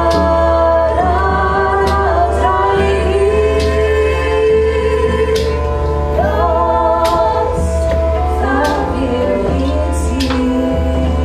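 Live band music: voices singing long held notes over a steady low drone, with occasional percussive hits.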